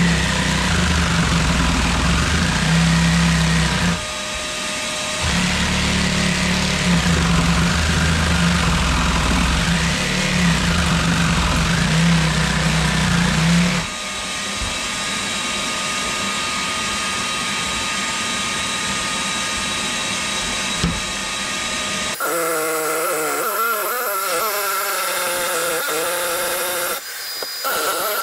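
Ozito cordless jigsaw cutting through a 19 mm fibre-cement floor sheet. The motor and blade run loud with a brief stop about four seconds in, go quieter after about fourteen seconds, and in the last few seconds the pitch wavers up and down as the cut goes on.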